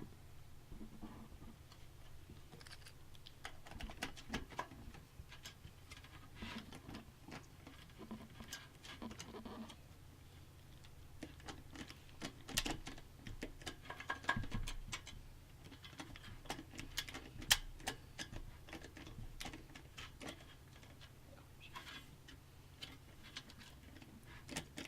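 Scattered clicks, taps and light scrapes of small parts being handled and fitted in a computer case, irregular throughout with a few sharper knocks in the middle.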